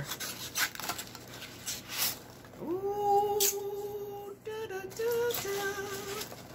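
A woman humming to herself in long held notes, a first one about two and a half seconds in and a shorter one near the end. Before it, light clicks and rustling of a box and its contents being handled.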